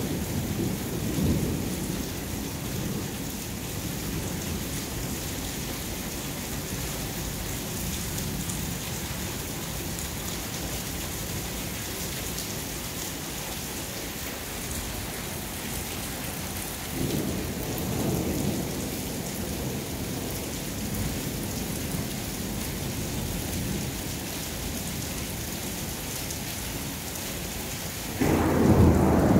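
Steady rain falling on a flat roof, with low rolls of thunder near the start and again about seventeen seconds in. Near the end it cuts suddenly to something louder with a voice in it.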